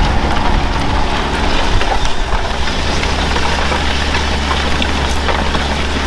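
Tractor engine running steadily under load as it pulls a reversible plough through the soil: a constant low drone with a broad hiss over it.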